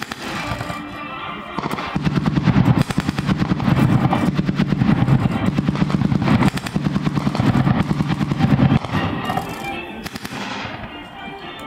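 Automatic weapons fire laying down covering fire for an obstacle-clearing party, blank rounds in rapid sustained bursts. It builds about two seconds in, is heaviest for about seven seconds, and eases off near the end.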